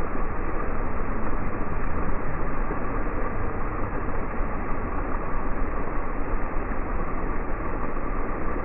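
Steady rushing of water pouring and spraying from a water-park play structure's fountains, an even hiss with no breaks.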